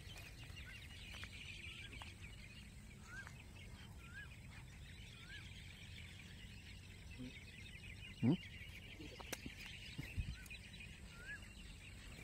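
A steady night-time chorus of insects, with short rising chirps every second or two and a single brief knock about eight seconds in.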